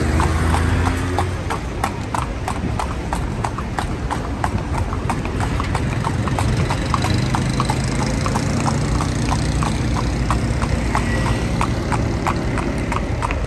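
Horse's hooves clip-clopping steadily, about three strikes a second, as it pulls a calèche (horse-drawn carriage), heard from aboard over a low rumble.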